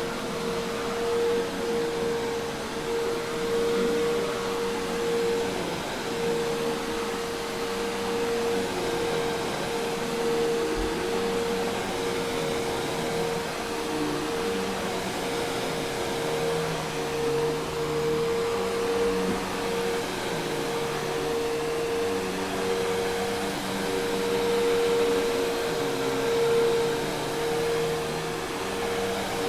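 Commercial Hoover Task Vac vacuum cleaner running steadily: an even rush of air with a steady mid-pitched motor whine over it.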